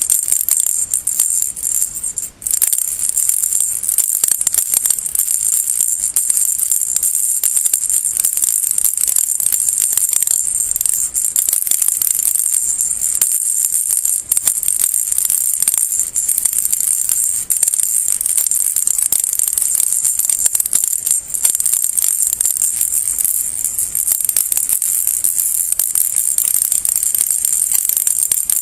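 Baby rattle shaken continuously: a dense, high-pitched rattling of small beads or pellets inside it, with a brief pause about two seconds in.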